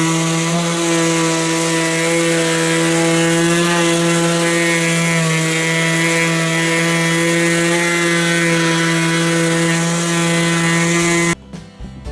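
DeWalt electric sander spinning up and running at a steady speed, a constant motor hum with a whine, sanding a cutting board. It cuts off suddenly near the end.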